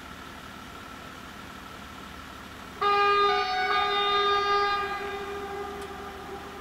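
Train horn sounding one long single-pitched blast about three seconds in, loud for around two seconds and then fading away, from a train approaching the level crossing.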